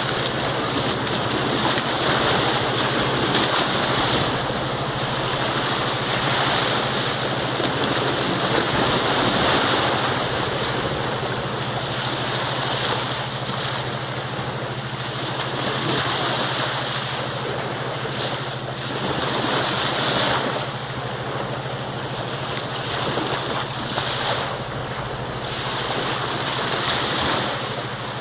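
Small waves washing onto a sandy shore, with wind on the microphone, while a German Shepherd digs in the wet sand. The wash swells and ebbs every couple of seconds.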